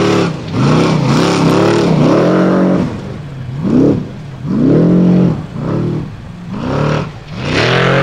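Formula offroad buggy's engine revving hard over and over, its pitch climbing and dropping with each throttle stab about once a second, as the buggy fights its way up a muddy hill with its tyres spinning.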